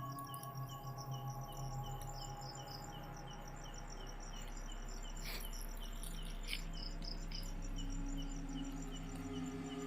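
Night insects chirping steadily: one pulsing about three times a second over a higher, rapid continuous chirring.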